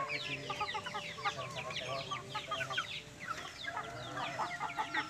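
Chickens clucking, with many short, high, downward-sliding chirps overlapping one another throughout.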